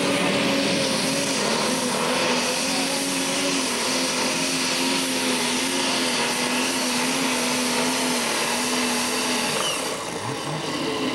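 International Harvester super stock pulling tractor's diesel engine at full power, holding a steady high pitch as it drags the weight-transfer sled down the track. About ten seconds in, the engine note drops away as the pull comes to an end.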